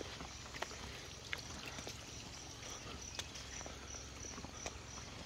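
High-pitched insect chirping in a steady rhythm, about two to three chirps a second, with faint scattered clicks.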